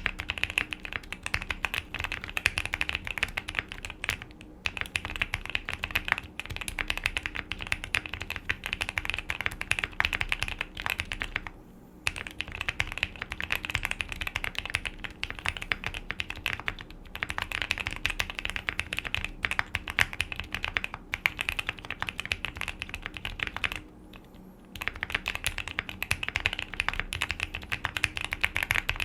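Typing on a QK65 mechanical keyboard fitted with lubed Gazzew Boba U4T tactile switches, a POM plate, full foam and EPBT keycaps: a fast, dense run of keystrokes broken by three short pauses.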